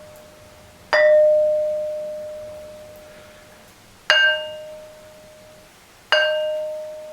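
A sonorous ringing rock struck three times, each blow ringing out like a bell and slowly dying away. The first rings with one clear tone; the next two ring with several higher tones over it.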